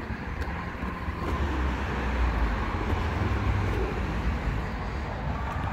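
Road traffic noise: a steady outdoor hiss with a low rumble that swells in the middle, like a vehicle passing on a nearby road.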